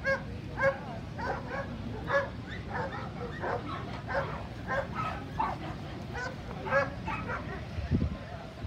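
A dog barking over and over, a short bark roughly every half second to second, over background crowd chatter, with a low thud near the end.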